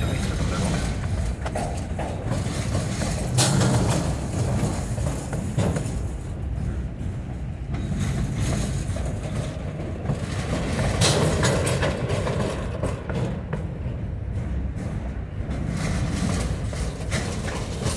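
Freight cars of a salt train rolling past at close range: a steady rumble of steel wheels on rail, with a few sharp clacks.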